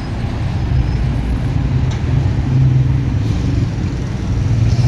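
Low, steady rumble of road traffic with an engine hum that swells about halfway through and again near the end.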